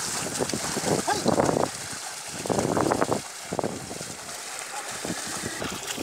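A pair of bullocks wading through flooded paddy mud, their hooves and the dragged plough sloshing and splashing in muddy water in uneven bursts.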